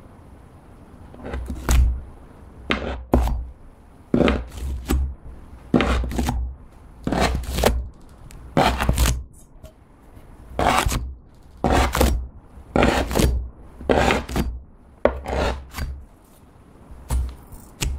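A kitchen knife pressed down through a thick slab of slime onto a wooden cutting board, scoring it over and over: a long series of separate cuts, often in close pairs, beginning about a second and a half in, each with a soft thud as the blade meets the wood.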